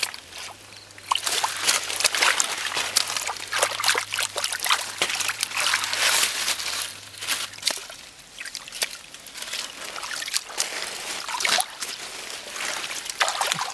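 Hands splashing and sloshing through shallow muddy water while grabbing for catfish, with many short, uneven splashes.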